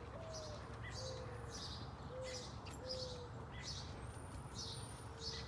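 Outdoor ambience of birds chirping: a short high chirp repeated about every two-thirds of a second, with a few softer lower calls and a low steady rumble underneath.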